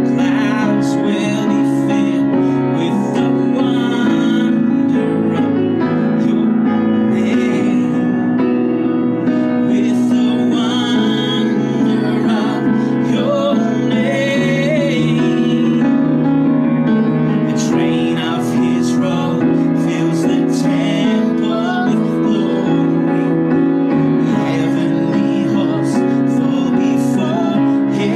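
A man and a woman singing a worship song together over a steady instrumental accompaniment.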